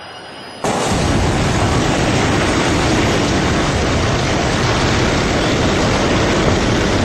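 Slowed-down crash of a train smashing into a people-carrier car at high speed. It comes in suddenly about half a second in as a loud, steady, dense rumble with no separate impacts.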